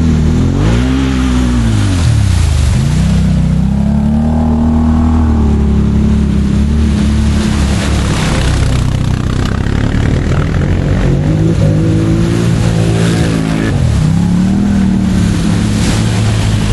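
ATV engine running under changing throttle. Its pitch rises and falls several times as the rider gets on and off the gas, with a deep dip a little under three seconds in and another near the end.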